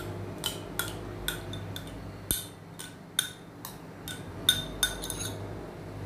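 A spoon scraping and tapping yogurt out of a plastic cup into a plastic bowl of flour: a run of light, irregular clicks, about two a second, some sharper than others.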